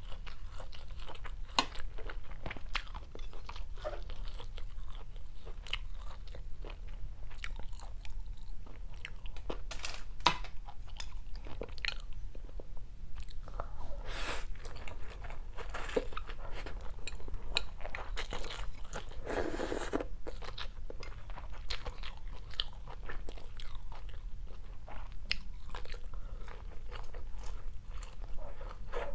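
Close-miked eating of stir-fried rice vermicelli with fried tofu: a steady run of chewing, wet mouth clicks and smacks, with a couple of longer slurps of noodles about halfway through.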